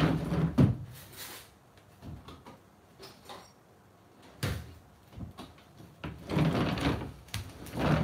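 A wooden sliding closet door being slid along its track, with knocks and rummaging, and a sharp knock about four and a half seconds in. Near the end come louder thuds of bare feet on a wooden floor.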